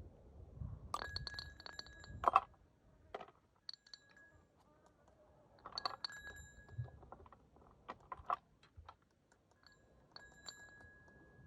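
Clinks and taps of metal hoof-trimming tools, several in three clusters, each ringing briefly with a thin high tone. The loudest knock comes about two seconds in.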